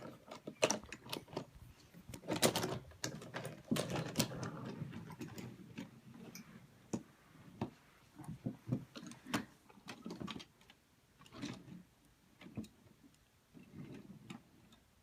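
Irregular clicks, taps and light clatter of plastic toy train pieces being handled and pushed about, in uneven clusters rather than a steady rhythm.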